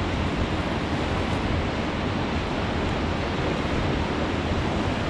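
Steady rush of whitewater from Upset Rapid on the Colorado River, with wind noise on the microphone.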